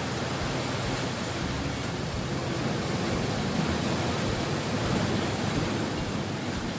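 Steady rush of sea surf washing against the shore, swelling a little in the middle.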